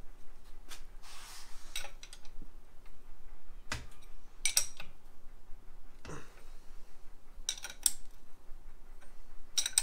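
Wrench working the nut on a VW Beetle front beam's upper trailing arm: scattered metal clicks and three short bursts of ringing metallic clinking as the nut is tightened.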